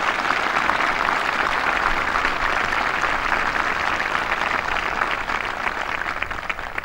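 Large crowd applauding: dense, steady clapping that tapers off near the end.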